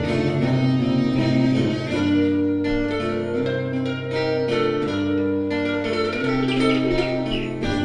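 Instrumental background music of slow, held string-like notes over a low sustained bass.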